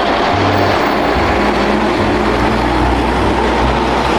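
Container semi-trailer truck's diesel engine running as the truck drives past, with a steady, even noise throughout.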